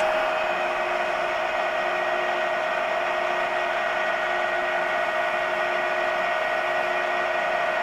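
Summit LE-1500 engine lathe running in threading mode, its lead screw turning and the carriage engaged and feeding along it. A steady hum with a few constant tones that does not change.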